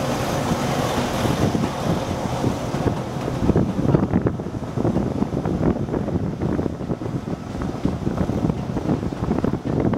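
Wengernalpbahn electric rack-railway train running, heard at an open window with wind buffeting the microphone. The hiss of a train passing on the other track fades over the first couple of seconds.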